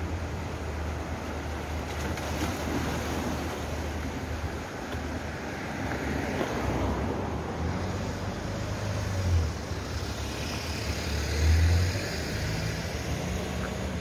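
Wind rumbling on the microphone, with two louder gusts near the end, over a steady wash of surf on the rocks and the tyre noise of a vehicle passing on the road.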